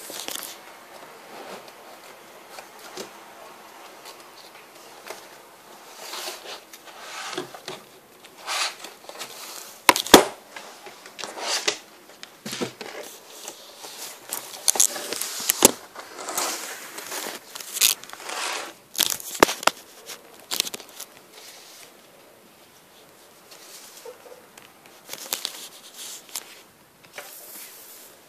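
Close handling noise: irregular crinkling and rustling of plastic card sleeves and cards being handled, with scattered clicks and knocks. The loudest knock comes about ten seconds in.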